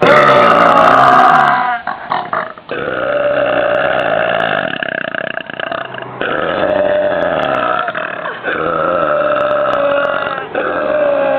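A woman's very loud, drawn-out burps, several in a row, each lasting a couple of seconds; the first is the loudest. They are produced by swallowing air into the stomach.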